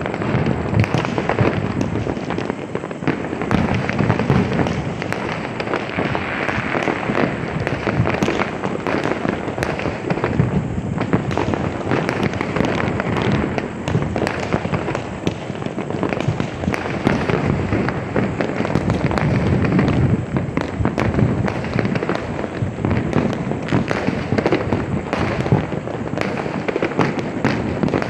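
Firecrackers and fireworks bursting without pause: a dense, continuous crackle of overlapping pops and bangs.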